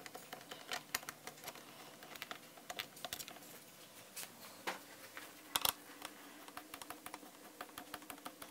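Small irregular clicks and light metallic taps from an 8 mm hand tool and bolts being worked loose on a dirt bike's fuel tank and lower shrouds, with a louder cluster of clicks about five and a half seconds in.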